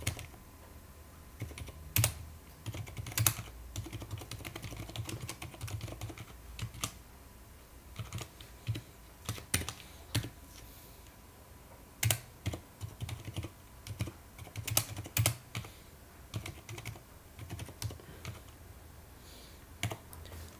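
Typing on a computer keyboard: irregular keystrokes in short runs with pauses between, a few keys struck harder than the rest.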